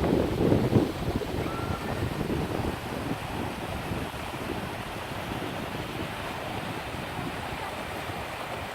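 Wind gusting against the microphone with low buffeting for the first two or three seconds, then dying down into a steady rushing hiss.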